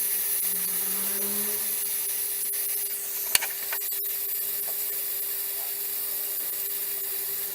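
Dremel Versatip butane gas soldering iron burning with a steady hiss while its hot tip is worked over wood, with faint rubbing of the tip on the wood surface. A single sharp click comes a little over three seconds in.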